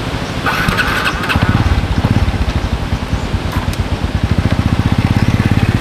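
An engine idling with a steady, rapid low pulse, growing louder about a second and a half in, just after a brief rattle.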